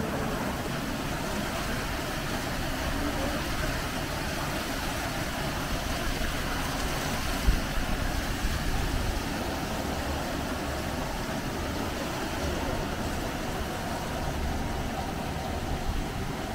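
Hot-spring water pouring over the Yutaki waterfall, a steady rush of falling water.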